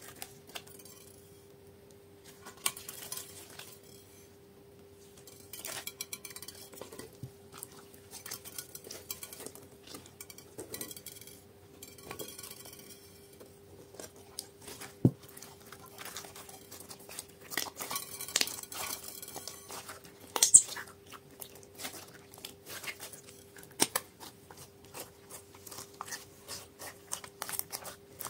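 Pink slime mixed with small beads being kneaded and stretched by hand in a glass dish: irregular sticky clicks, crackles and small pops, with a few sharper snaps, one about halfway through and a louder one a few seconds later.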